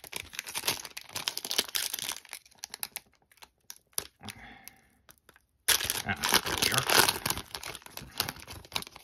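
Foil trading-card pack wrapper being torn open by hand and crinkled: a spell of crackling, a quieter lull around the middle, then a second loud spell of crinkling as the wrapper is peeled back from the cards.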